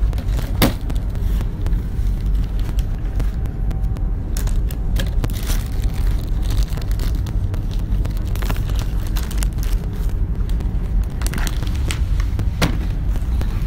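Phone handling noise: a steady low rumble as the phone is moved and rubbed, with scattered clicks and knocks, a sharp one about half a second in and more around the middle and near the end.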